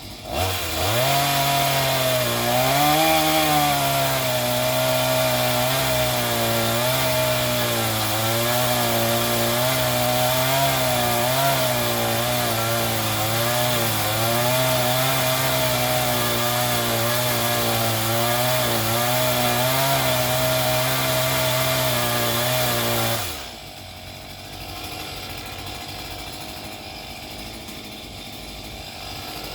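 Chainsaw running at full throttle while cutting through a tree limb, its pitch wavering as the chain bites. It winds up about half a second in and stops suddenly about 23 seconds in.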